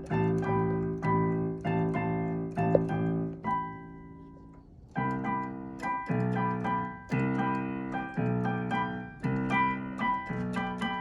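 Piano chords struck over and over in a steady rhythm, about two a second. Around four seconds in one chord is left to ring and fade for about a second, then the repeated strikes resume on a different chord.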